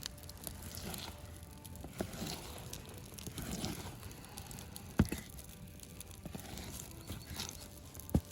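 Knife cutting meat on a sheet of birch bark used as a cutting board: soft squishy slicing with scattered knocks of the blade on the bark, the sharpest about five seconds in and again near the end.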